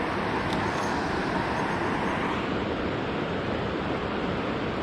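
Steady rushing of water from a dam spillway, an even wash of noise without pauses.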